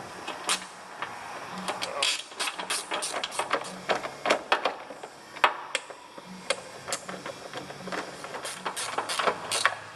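Irregular clicking and clatter of a hand tool and plastic airbox parts as two 8 mm fasteners are fitted into the top of a car's air intake box, over a faint steady hum.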